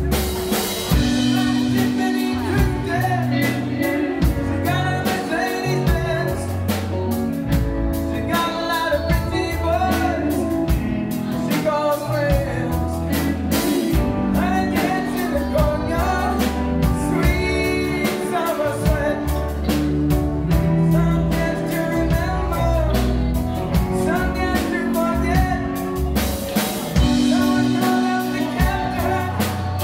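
Live rock band playing: electric guitars, bass guitar, drum kit and keyboards, with lead vocals sung over them.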